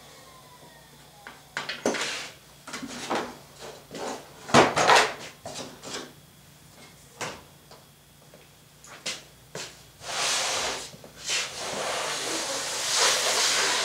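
Irregular knocks and clunks of an aluminium track-saw guide rail and a thin 6 mm Baltic birch plywood sheet being lifted and set down on a wooden table, the loudest about five seconds in. From about ten seconds on, the plywood sheet slides across the table with a long scraping rub.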